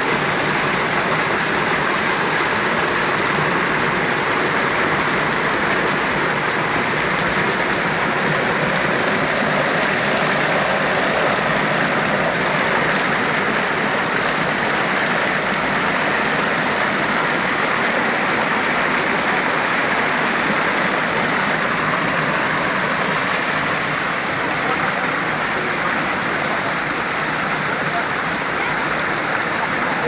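Small waterfall pouring onto rocks, a steady loud rush and splash of falling water.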